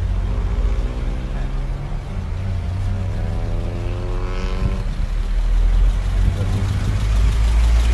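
A vehicle engine rising steadily in pitch as it speeds up over a few seconds, over a heavy low rumble of road and wind noise from a moving car.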